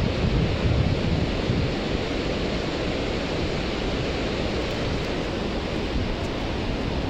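Wind blowing across the microphone: a steady rushing noise with a low buffeting rumble that gusts harder in the first second or so.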